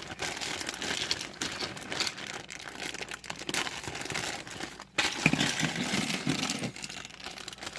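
Crinkling and rustling of plastic packaging as small Playmobil pieces are handled, with many small sharp crackles.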